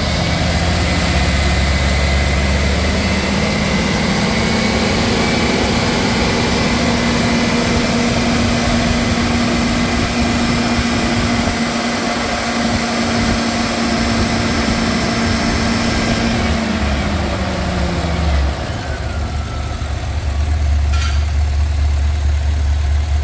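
2006 GM/Chevrolet 6.0L Vortec V8 truck engine running. It rises from idle a few seconds in, holds steadily at a raised speed, then drops back to idle near the end.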